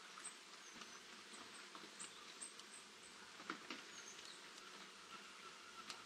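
Light rain falling, heard only faintly as an even hiss with scattered ticks of drops and a couple of stronger taps about three and a half seconds in. A few faint, very high short chirps come through the rain.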